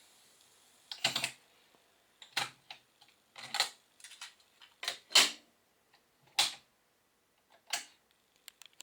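A string of separate mechanical clicks and clunks, about six over several seconds with quiet gaps between them, as from the keys and tape transport of an Onkyo TA-2550 cassette deck being operated after playback has stopped.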